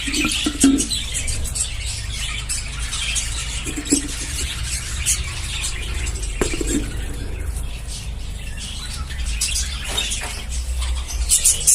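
A colony of budgerigars chirping and chattering all at once, with scattered sharp clicks among the calls.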